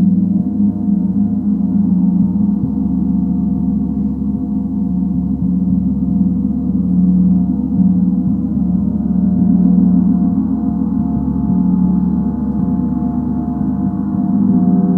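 Gong sounding in a sustained, swelling wash of overlapping tones, strongest low down, with a slow pulsing beat and no separate strikes standing out.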